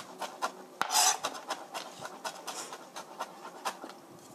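Chef's knife mincing garlic on a cutting board: quick chopping knocks, about three or four a second, with one louder, noisier sound about a second in, and the strokes thinning out near the end.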